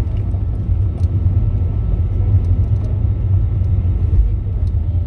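Steady low rumble in the cabin of an Airbus A320neo-family airliner during its landing rollout, spoilers raised, as the wheels run down the runway.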